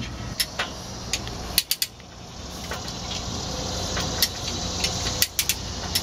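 Steel chain links clinking and knocking against the backhoe's metal cab frame as the chain is fed down around the transaxle: a series of irregular sharp clicks, some in quick clusters, over a steady low hum.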